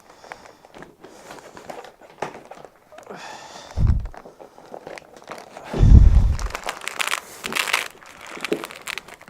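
Rustling and crinkling of a padded canvas fridge cover being pulled and adjusted by hand, with two dull low thumps, about four and six seconds in, the second the loudest.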